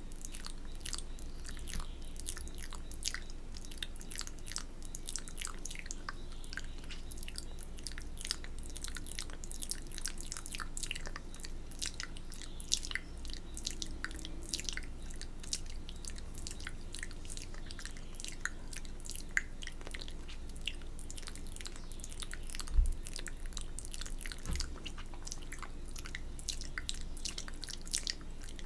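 Close-miked wet mouth sounds: rapid, irregular moist clicks and smacks of lips and tongue as she licks her fingers for ASMR spit painting. One smack about three-quarters of the way through is louder than the rest.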